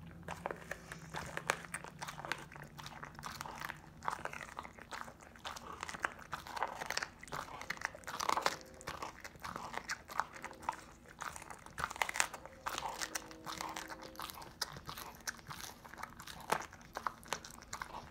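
A pit bull chewing on a raw chicken leg, bone and all: irregular crunching bites that crack through the bone.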